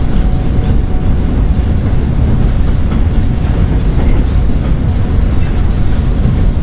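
Running noise inside a Seoul Metro 1000 series resistor-control train car while it is under way: a steady, loud rumble of wheels on rail and the traction equipment.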